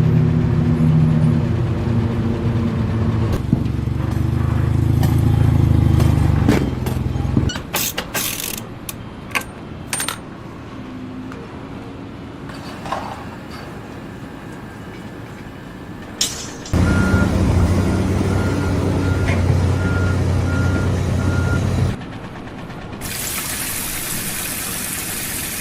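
Heavy construction vehicle engines running steadily in separate short takes, with a reversing alarm beeping about twice a second during the second engine take. Scattered clicks and knocks fall in the quieter middle stretch, and a loud hiss comes near the end.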